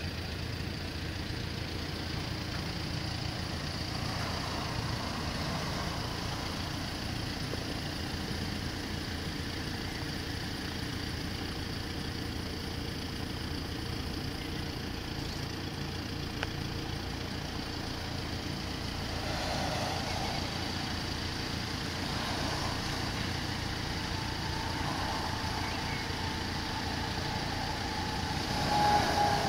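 Steady low rumble of an idling road vehicle's engine, with a faint steady tone coming in about 24 seconds in and growing louder near the end.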